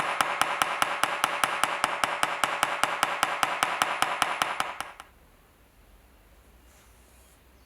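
Small hammer tapping rapidly and evenly, about six or seven light blows a second, stopping abruptly about five seconds in.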